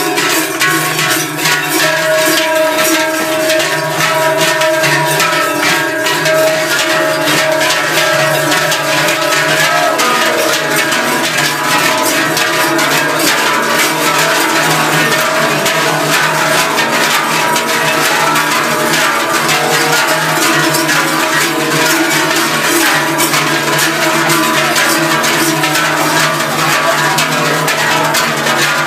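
Silvesterchläuse singing a wordless Zäuerli yodel: men's voices holding long notes in harmony, breaking off and starting again every few seconds. Their large bronze cowbells and strings of round crotal bells jangle throughout.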